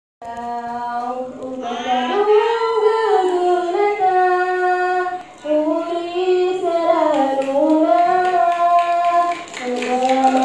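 A woman's solo voice singing unaccompanied into a microphone and amplified through a PA loudspeaker, holding long notes with slow ornamented turns. There is a short breath break about five seconds in.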